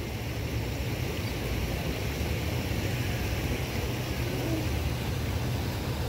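Fountain jets and a small rock waterfall splashing into a pond, a steady rushing noise over a constant low rumble.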